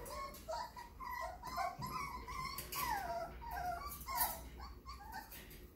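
Several young Italian Greyhound puppies whimpering and yipping in a string of short, high cries, some sliding down in pitch, one after another.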